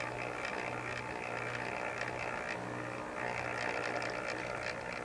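HO-scale Tyco Golden Eagle C630 model locomotive on a Hobby Town of Boston chassis crawling at its slowest speed, its electric motor and gear drive whirring with a low hum that breaks off and resumes about once a second. The running is a little uneven at this speed, with slight hesitation.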